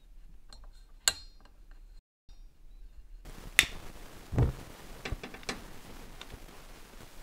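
Gas stove burner being lit: a few sharp clicks about a second in, then a loud click, and the gas catching with a low soft whoomp. The burner then hisses steadily with a few small ticks.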